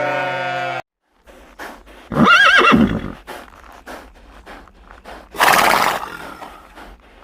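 A horse whinnying: one loud, quavering call about two seconds in, followed a few seconds later by a short, noisy blow. Faint knocks are scattered between.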